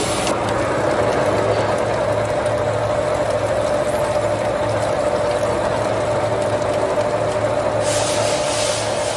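Horizontal boring mill running steadily, its boring bar machining the bore of a steel jacking-station block, with a steady mid-pitched tone over a pulsing low hum. A hissier edge joins near the end.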